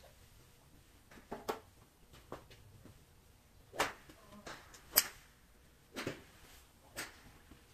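Golf clubs striking balls off practice mats: a series of sharp cracks, about one a second in the second half, the loudest about five seconds in.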